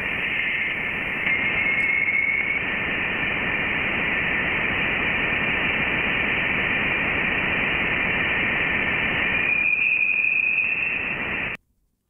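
Sonified data from Voyager 1's plasma wave instrument in interstellar space: a steady static hiss. A faint whistling tone rises in pitch about a second in, and a second, higher tone rises near the end. The tones are vibrations of dense interstellar plasma, and their pitch reflects the plasma's density. The hiss cuts off suddenly just before the end.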